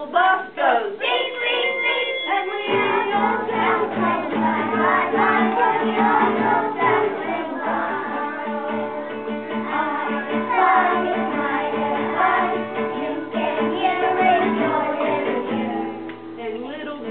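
A group of young children singing a song together over an instrumental accompaniment.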